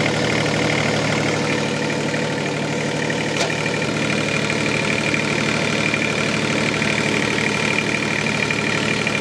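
Ventrac 4520 compact tractor's 24 hp three-cylinder Kubota engine idling steadily, with one light click about three and a half seconds in.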